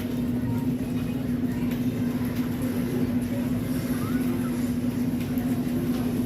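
A steady low rumble with a constant, even-pitched hum running through it, unchanging throughout.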